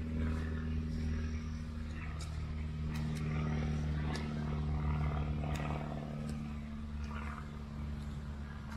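A steady low mechanical hum, with a few short high chirps over it.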